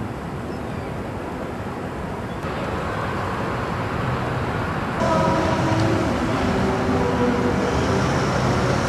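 City street traffic, with a vehicle engine's steady hum coming in louder about halfway through. The noise steps up abruptly twice.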